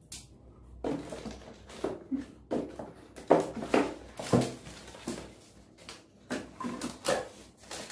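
Cosmetic jars and their packaging being handled: rustling and a series of irregular knocks and clicks, as one face-mask jar is put away and the next is taken out of the box.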